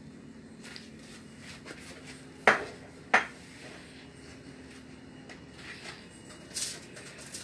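Kitchen utensils and cookware clattering: two sharp clanks, about two and a half and three seconds in, among lighter clinks, over a faint steady hum that stops about five seconds in.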